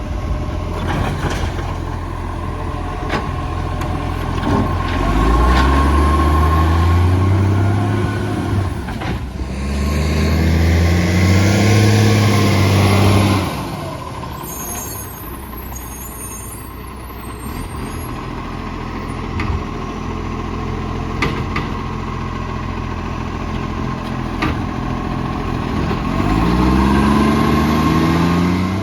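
Garbage truck's diesel engine, which has an exhaust leak, idling and revving up three times: about five seconds in, about ten seconds in with a loud hiss alongside, and again near the end.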